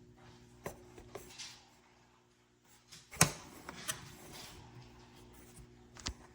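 A few scattered light clicks and knocks at irregular times, the loudest about three seconds in, over a faint steady hum.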